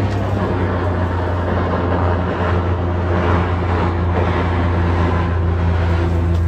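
Steady low engine drone of a propeller-driven airboat (aerosled) running on the river ice, holding an even pitch.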